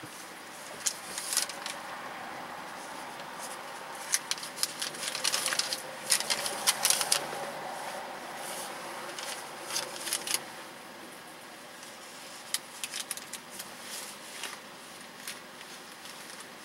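Irregular rustling and crisp clicks of small things being handled inside a car, in several short flurries over a steady low hum.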